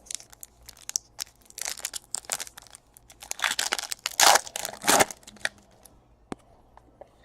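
Trading-card pack wrapper crinkling and tearing, with cards being shuffled and handled in scattered clicks and short rustles.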